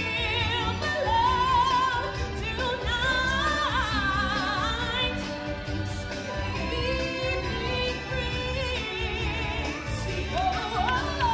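A stage-show song: a singer holding long notes with a wide vibrato over band backing with a steady bass.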